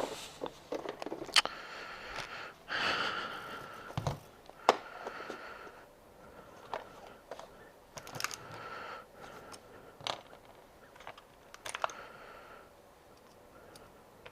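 Scattered sharp clicks and taps with a few short stretches of scraping and rustling, from small parts and fasteners being handled and fitted.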